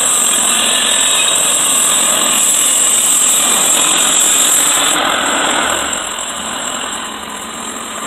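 Mr. Sawmill Model 30 portable band sawmill running, its engine-driven blade cutting through a log as the saw head is pushed along by hand. About six seconds in, the cut finishes and the sound drops to the engine running on its own.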